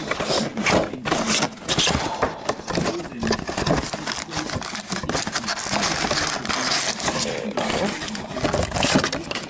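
Sports trading-card packs being opened by hand: plastic wrappers crinkling and tearing and cards being handled, a dense run of irregular crackles and rustles.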